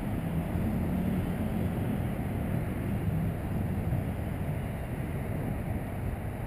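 Wind buffeting the microphone: a steady low rumble, with a faint hum underneath that fades about halfway through.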